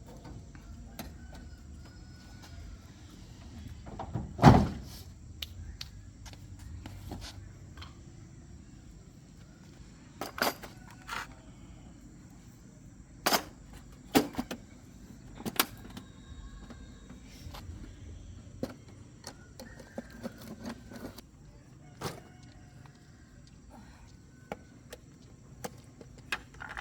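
Scattered knocks and clicks of handling, one much louder than the rest about four and a half seconds in, over a quiet background.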